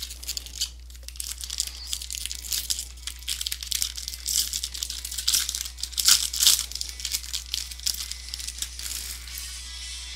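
Plastic trading-card pack wrapper crinkling and tearing as a jumbo pack of baseball cards is opened and handled. The crackling comes in dense flurries and is loudest about six seconds in.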